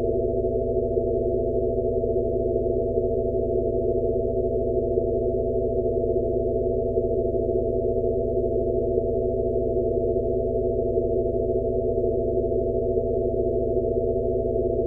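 Steady synthesized sound-therapy drone of layered low sine tones, a Rife-frequency tone for tinnitus relief, with nothing above a mid pitch. A faint soft pulse recurs a little more than once a second beneath the unchanging hum.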